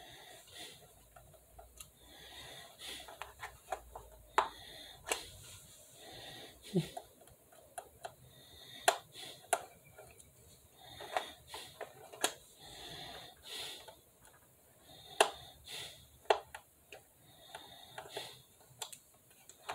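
Small screwdriver working a screw out of a toy RC bus's plastic battery cover: irregular light clicks, taps and scrapes of metal on plastic, with soft breathing between them.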